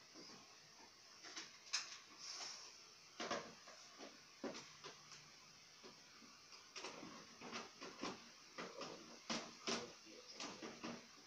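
Screwdriver working the screws out of a CRT television's plastic back cover: faint, irregular clicks, knocks and scrapes of metal on plastic.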